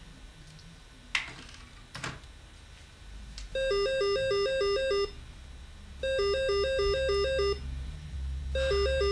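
Corded landline telephone ringing with an electronic warbling trill: a fast alternation between two notes, in bursts about a second and a half long with a pause between, three times, the third starting near the end. Two sharp clicks come about a second and two seconds in, before the ringing.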